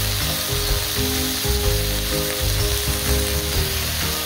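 King oyster mushroom slices sizzling as they fry in olive oil in a frying pan, a steady, even hiss.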